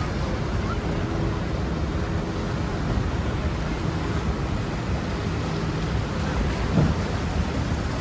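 Steady roar of churning river water and the Rhine Falls heard from an open tour boat, with wind on the microphone and a low hum from the boat's engine underneath. A brief low sound stands out near the end.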